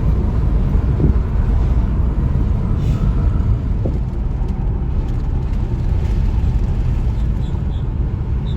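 A car on the move, a steady low rumble of engine and road noise.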